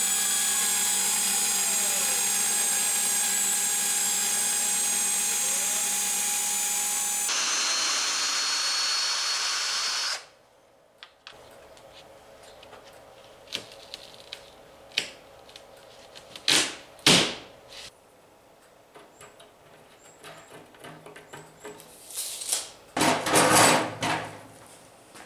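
CNC router spindle running steadily while cutting a profile out of a sheet, with a tone that slides up and down as the machine moves; the sound cuts off abruptly about ten seconds in. After that, scattered knocks and scrapes of the cut sheets being handled, with two sharp bangs in the middle and a longer loud scrape near the end.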